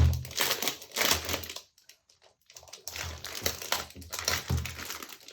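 Plastic wrapping being pulled off a computer keyboard, crinkling in irregular spells, with a short pause about two seconds in.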